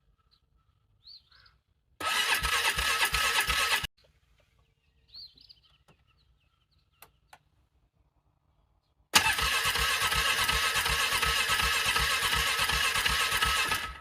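A vehicle's starter cranking a cold engine that struggles and does not catch: a short two-second try, then a longer try of about five seconds near the end, each cutting off abruptly. Birds chirp faintly in the pauses between the tries.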